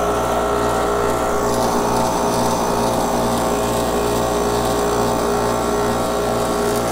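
Mastercool 69110 refrigerant recovery machine running with a steady hum, its compressor pulling refrigerant out of a car's A/C system into the recovery tank.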